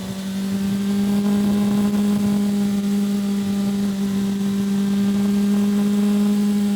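2005 Yamaha FZ6's inline-four engine under way, swelling louder over the first second as it pulls harder with the pitch edging up, then running at steady high revs.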